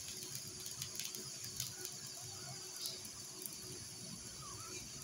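Quiet kitchen background with a faint steady hum and a few soft ticks.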